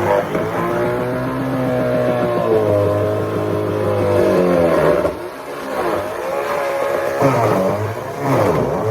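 Chainsaw running hard while cutting, its engine pitch high and then sagging under load and picking back up, about five seconds in and again near the end.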